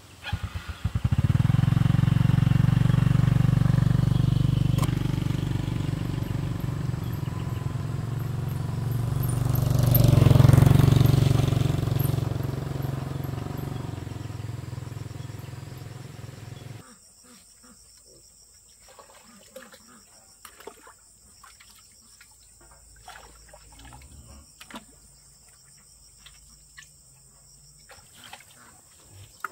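A motorcycle engine running steadily, swelling to its loudest about ten seconds in. It cuts off suddenly about seventeen seconds in, leaving quiet background with insects chirping and scattered light knocks.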